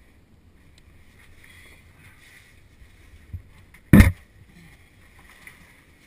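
Caver's body and gear moving against cave rock in a tight passage: faint shuffling, a small knock a little past three seconds, then a loud, sharp knock against the rock about four seconds in.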